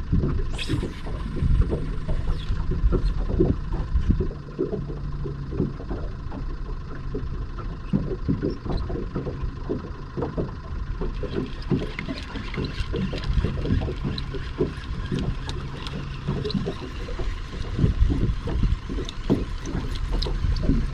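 Water lapping and slapping against the hull of a small fiberglass boat, with wind buffeting the microphone. About half a second in there is a brief whoosh of a fishing cast as line runs off the reel.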